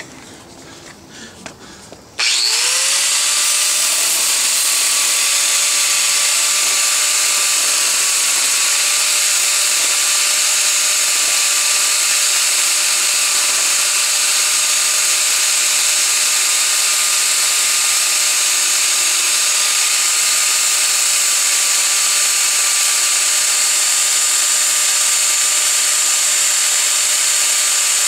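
Angle grinder with a sanding disc switched on about two seconds in, spinning up with a short rising whine, then running steadily at full speed with the disc against the cut end of a baseboard, sanding the molding profile into a coped joint.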